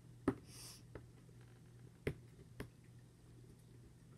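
A few light taps and clicks from fingers handling a cardboard toy box, the loudest about a third of a second in with a short rustle after it, over a faint steady low hum.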